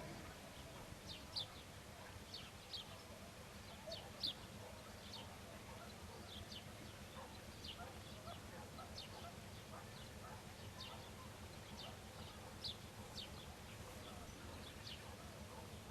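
Small birds chirping: short, high, downward-sliding chirps, about one or two a second, over a faint low steady hum.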